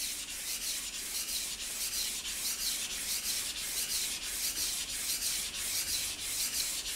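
Knife blade being sharpened by hand on a wet whetstone, scraping back and forth through the stone's slurry in quick, even strokes, about three a second. The strokes are raising a burr along the edge.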